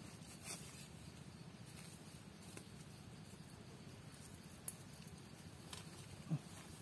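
Faint scraping and scratching of a wooden-handled hand digging tool working into dry forest soil, with a few sharp ticks and a louder knock about six seconds in.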